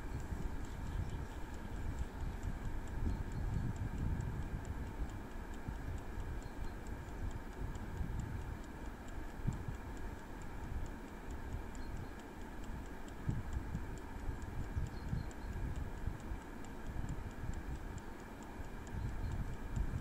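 Prego air fryer running, its mechanical timer dial ticking steadily as it counts down the cooking time over the steady tone of the fan. A gusting low rumble of wind on the microphone runs underneath.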